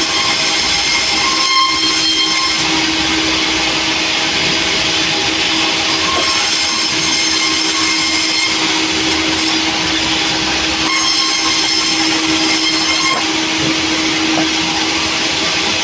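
Sawmill running, a steady loud machine noise with a constant hum underneath and a high whine that comes and goes.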